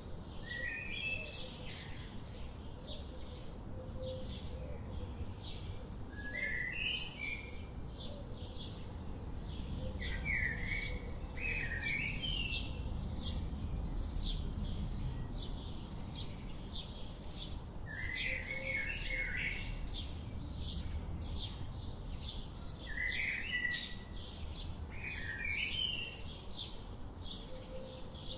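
Forest birds singing short warbled phrases every few seconds, over a steady series of short high chirps about two a second and a low, even rumble.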